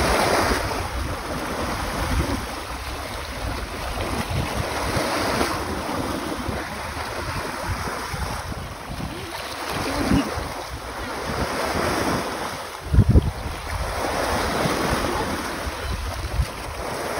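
Sea waves breaking and washing ashore, the surf rising and falling every few seconds, with wind buffeting the microphone. A brief loud thump about thirteen seconds in.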